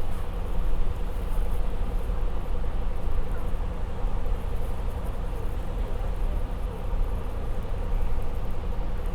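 Inside a bus cabin: the bus's engine and running gear give a steady, heavy low rumble with a faint steady hum above it.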